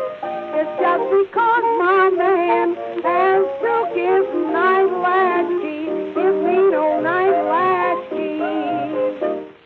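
Closing bars of a 1920s blues record: a wavering melody line over steady accompaniment, thin and muffled, stopping abruptly near the end.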